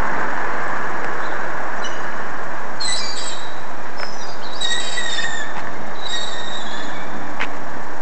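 Steady, loud rushing noise with high squeals breaking through several times, each lasting under a second.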